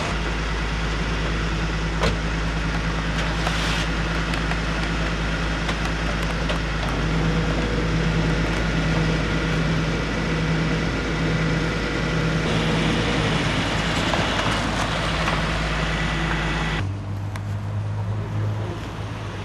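Car engines running with a steady low rumble, changing abruptly to a lighter engine sound about seventeen seconds in.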